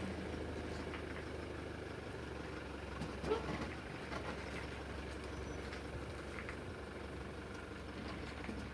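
Toyota Land Cruiser Prado 150 running, a steady low hum with faint scattered clicks and one brief louder sound about three seconds in. This is the abnormal noise (異音) the car has made since new, whose cause Toyota has not found.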